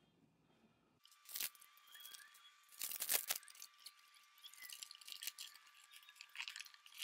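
Crinkling and rustling of a sound-deadening sheet as its backing liner is peeled off and the sheet is pressed by hand onto a car door panel. The sound comes in irregular bursts starting about a second in and is loudest around three seconds in. A faint steady high tone runs underneath.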